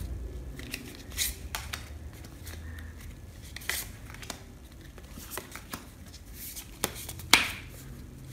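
Lenormand cards being handled and dealt from the deck: scattered crisp flicks and snaps of card stock, the loudest about seven seconds in.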